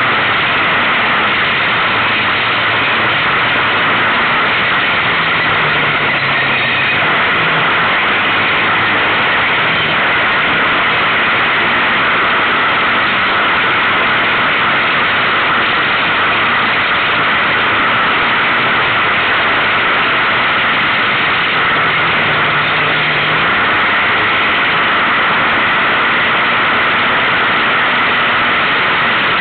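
Kawasaki KFX700 quad's V-twin engine running under way over rough dirt track, buried in a steady, loud rushing noise of wind and ground.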